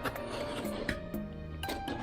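Background music with held notes and light percussive hits.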